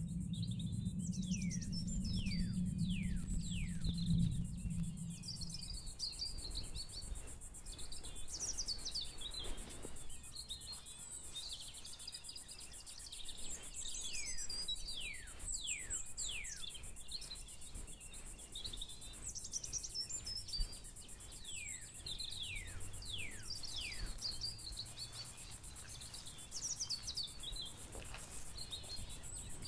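Woodland ambience: many birds chirping in quick, falling whistles, scattered throughout over a steady high-pitched buzz. A low droning note from the soundtrack fades out in the first few seconds.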